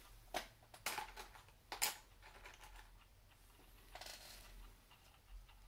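Handling noise: a few quick, light clicks in the first two seconds, then a soft rustle about four seconds in.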